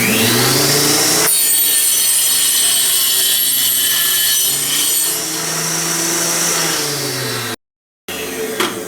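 Small 4-inch mini table saw spinning up with a rising whine, then its blade cutting through a wooden board for about four seconds, really loud. After the cut it runs on freely with a steadier tone.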